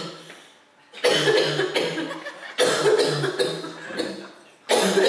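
A person's voice in two loud, sudden vocal outbursts, one about a second in and one near the end, each trailing off over a second or so.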